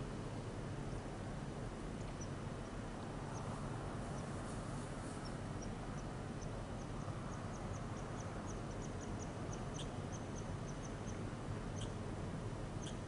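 A small bird giving a long series of short, high, thin chirps, a few a second, with three louder ones near the end, over a steady low background hiss.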